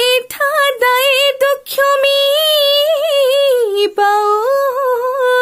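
A woman singing an Assamese Bihu song unaccompanied, one voice holding long notes with wavering, ornamented pitch and short breaks for breath.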